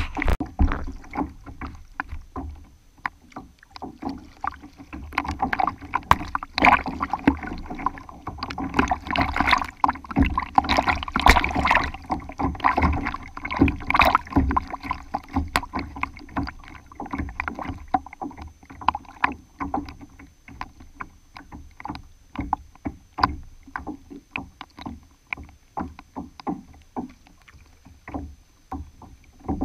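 Lake water splashing and lapping against the tube of an inflatable kayak at the waterline as the boat moves, a dense run of small slaps that is loudest in the middle and eases off later.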